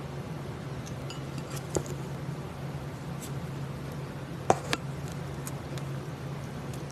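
Crunchy slime being handled, giving scattered crackling clicks and pops. The loudest is a sharp pop about four and a half seconds in, over a steady low hum.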